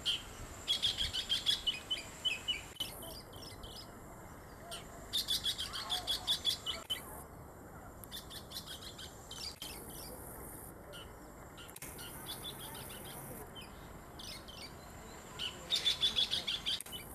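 Oriental magpie-robin singing: three loud phrases of quick high notes, about a second in, around five seconds in and near the end, with softer notes between them.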